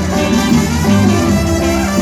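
Banda music: an instrumental passage led by brass, with no singing.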